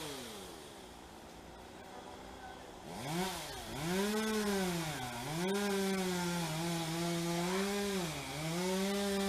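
Two-stroke chainsaw running: low and quieter for the first few seconds, then revved high about three seconds in, its pitch dipping and recovering several times.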